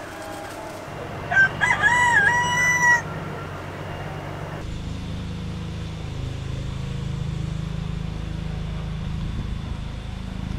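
A rooster crows once, about a second and a half in, in a single call of about a second and a half. A steady low rumble follows.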